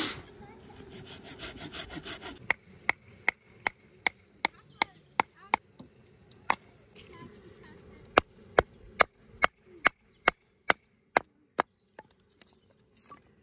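A blade scraping along a wooden stick in quick, rhythmic strokes, then a wooden baton knocking on the spine of a knife to split kindling: sharp knocks about two to three a second, in two runs with a short pause between, and a few lighter taps near the end.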